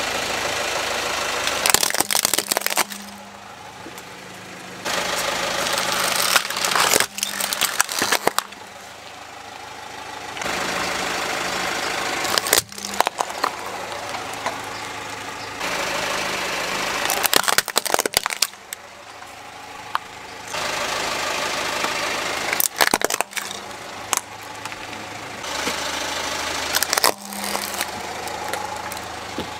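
Car tyre rolling over plastic toys and crushing them: several quick runs of sharp cracks and crunches as the plastic breaks, over the steady idle of the car's engine.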